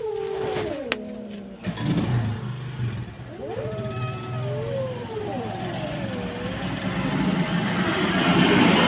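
A cat yowling in drawn-out warning calls that rise and fall in pitch, one trailing off about a second in and a longer one a few seconds later. A motor vehicle engine hums underneath and grows louder near the end.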